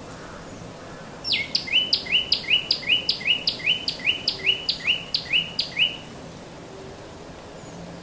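Common tailorbird singing: a loud, rapid series of about a dozen repeated two-part notes, each a sharp falling note followed by a short rising one, about three a second, starting about a second in and stopping abruptly after some four and a half seconds.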